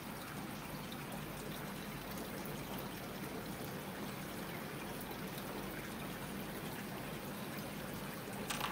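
Aquarium water trickling steadily over a low, steady hum. A short knock near the end.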